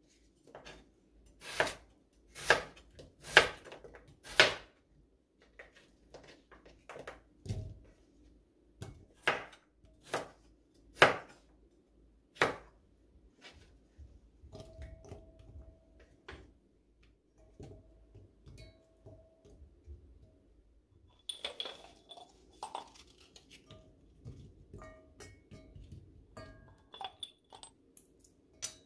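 Kitchen knife chopping vegetables on a cutting board: single sharp strikes about a second apart, then a few more spaced chops. In the second half come quieter taps and clinks of kitchenware.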